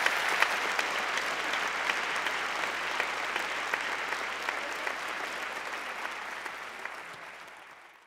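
Audience applauding, a dense patter of clapping that fades away near the end.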